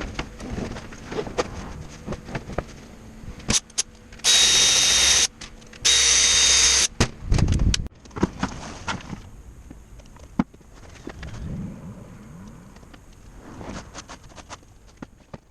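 Hammer drill run in two short bursts of about a second each, roughly four and six seconds in, with scattered clicks and knocks of handling around them.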